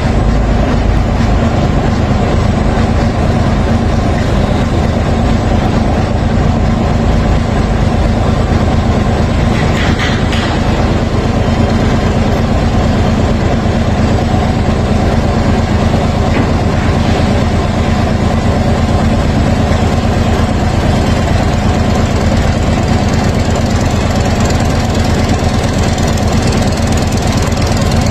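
Large marine diesel engine of a river ferry, a Mitsubishi rated at 926 hp, running steadily at a loud, even level with a strong low hum.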